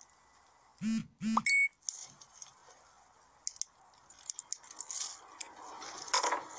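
Two short, loud sounds about a second in, then a brief high beep, followed by faint clicks as a hand-held lighter is struck and a paper talisman catches fire.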